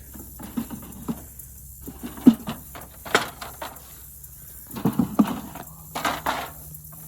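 Wooden beehive frames and boxes being handled: irregular knocks and scrapes as frames are worked out of a hive box, the loudest knock a little over two seconds in.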